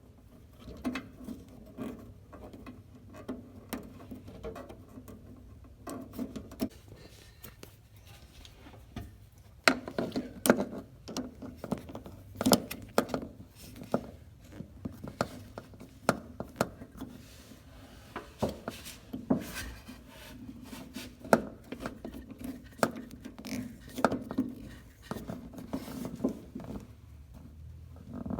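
Hand work on a rubber fuel hose and its metal hose clamps: irregular clicks, taps and rubbing as the hose is pushed onto its fitting and the clamps are slid into place and tightened. The sounds are scattered and come thicker from about a third of the way in.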